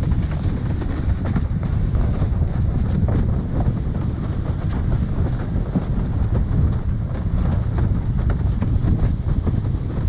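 Wind buffeting the microphone of a camera riding on a windsurf board sailing in 13–25 knots, with water rushing under the hull and many short slaps and splashes as the board crosses the chop.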